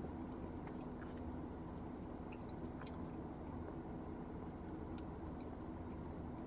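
A person quietly chewing a mouthful of banana cream tart, with a few faint clicks, over a steady low hum.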